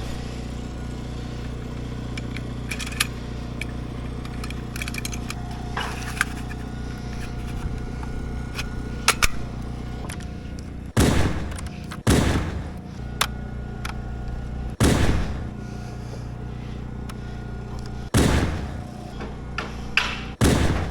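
A steady low hum, a few light clicks, then five loud, sharp, gunshot-like bangs spaced one to three seconds apart in the second half, each dying away quickly.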